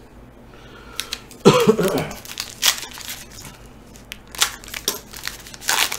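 Foil wrapper of a trading-card pack being torn open and crinkled: a run of short, sharp crackles and rustles.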